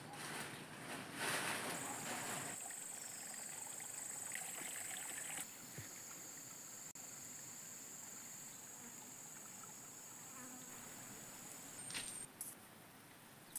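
Insects making a steady, high-pitched drone that stops near the end, with a louder burst of rustling noise about a second in.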